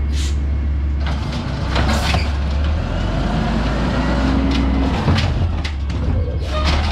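Diesel engine of an automated side-loader garbage truck running with a steady low rumble, broken by a couple of short hisses, about two seconds in and near the end.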